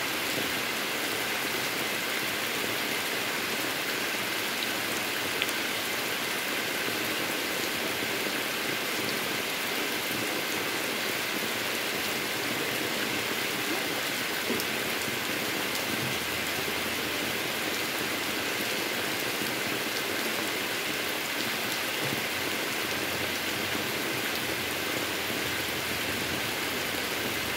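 Heavy rain falling steadily on a wet asphalt road and the surrounding trees.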